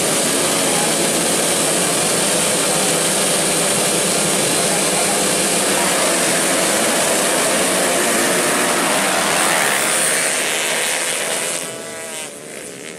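A field of grasstrack dirt bikes revving together at the starting line: a dense, wavering blend of many engines. Near the end the engine noise drops away sharply as the pack launches off the line.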